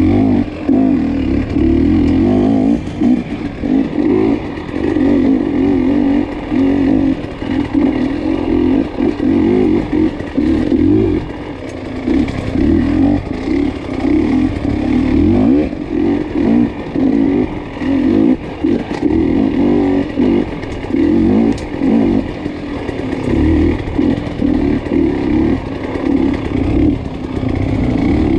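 Off-road dirt bike engine revving up and down as the throttle is opened and closed over and over during the race, with a few sharp knocks from the bike over rough ground.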